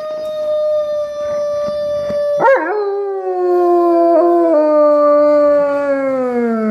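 Alaskan Malamute howling: one long steady howl, then a brief wavering break about two and a half seconds in, and a second, lower howl that slowly falls in pitch.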